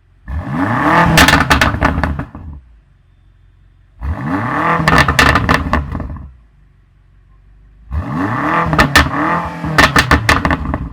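BMW M5 Competition's 4.4-litre twin-turbo V8 revved from idle three times, each rev rising and falling in pitch, with sharp exhaust crackles as the revs drop. A low steady idle runs between the revs.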